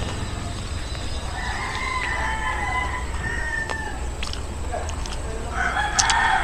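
A rooster crowing twice: one long crow about a second in, and a louder one starting near the end.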